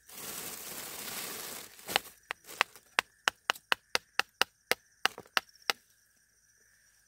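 Food being handled while a meal is served out: about two seconds of rustling, then a quick run of about a dozen sharp clicks and taps, roughly three a second, which stop near the end.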